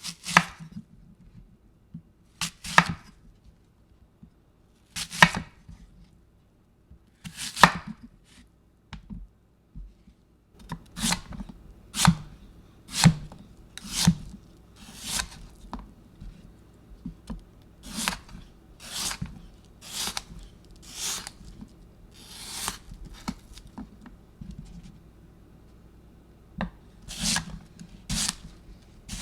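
Knife slicing strokes, one at a time: about two and a half seconds apart at first, then about one a second from the middle on, with one longer, drawn-out slice later.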